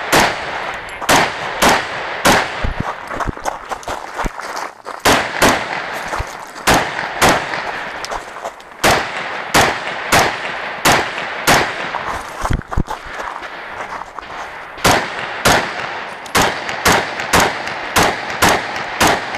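Semi-automatic rifle fire during a practical shooting stage run: shots in quick pairs and strings about half a second apart, each with a short echo. There is a brief pause about 13 seconds in, then a faster string of shots toward the end.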